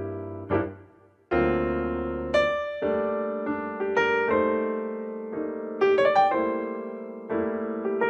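Background piano music: struck notes and chords that ring and fade, with a brief pause about a second in before a fuller passage of chords and melody.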